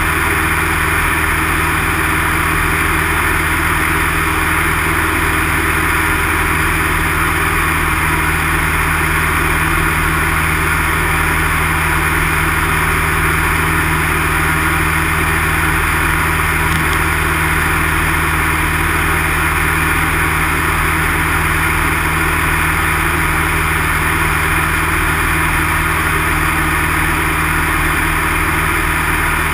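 Light single-engine aircraft's piston engine and propeller running steadily in flight, a constant drone with a rush of airflow, heard from inside the cockpit.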